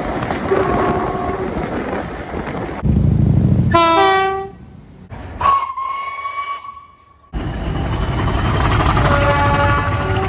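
A string of train horn and whistle clips joined by abrupt cuts. It opens with a rolling train and a short horn chord. Then a whistle slides up in pitch, and a single-note whistle is held for about two seconds. It ends with train rumble and a multi-note horn chord sounding near the end.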